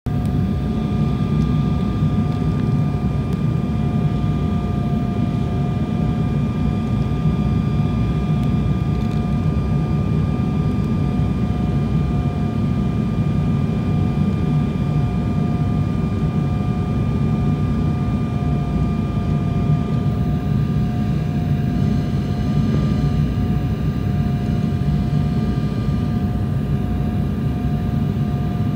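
Jet airliner cabin noise on approach: a loud, steady rush of engine and air noise, with a few steady whining tones above it.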